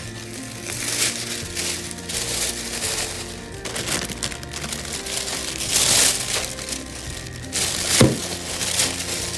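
Thin plastic shopping bag rustling and crinkling as it is handled, in repeated bursts, with a sharp thump near the end, over background music.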